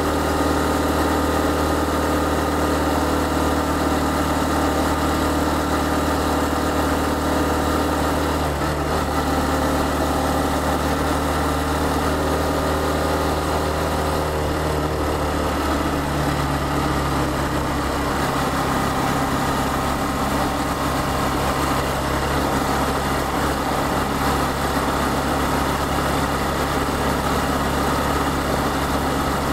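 Honda Cross Cub CC110's single-cylinder four-stroke engine running steadily under way, heard from the rider's ears with wind rush. Its note dips briefly about eight seconds in and steps up in pitch about halfway through.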